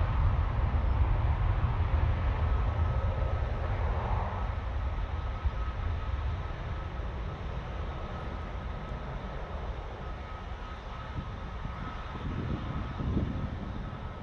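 Two Rolls-Royce Trent 800 turbofans of a Boeing 777-200ER at takeoff power: a deep jet rumble with a steady high whine, fading gradually as the airliner rolls away down the runway. The rumble swells briefly near the end.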